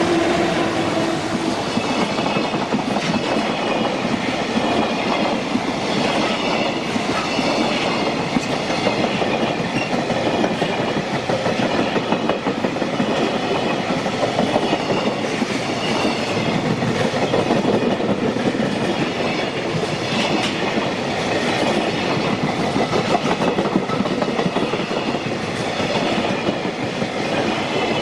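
JR Freight train's wagons rolling steadily past at speed, wheels clattering over the rail joints with a continuous loud rumble.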